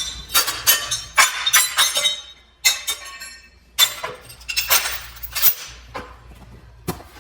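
A series of irregular clinks and rattles of hard objects knocking together, coming in short clusters with brief pauses between them.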